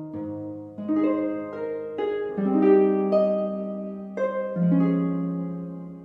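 Gentle instrumental background music of plucked notes, each starting sharply and then fading, played as a slow melody over chords.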